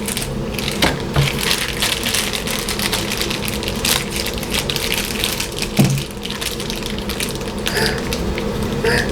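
Plastic packaging crinkling and crackling as it is handled and torn open to get a small toy figure out.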